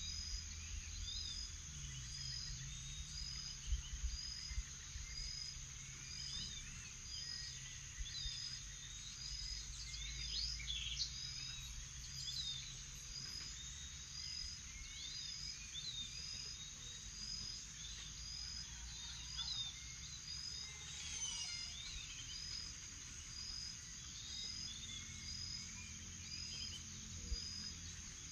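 Morning bird chorus: many birds chirping and calling over a steady high insect drone, with a short high note repeating evenly, about three times every four seconds. A faint low rumble runs underneath.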